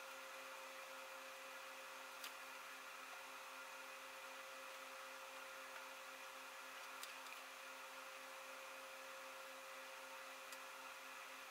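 Quiet room tone: a steady faint electrical hum over hiss. Three faint clicks come through it, from a fingertip tapping a phone's touchscreen.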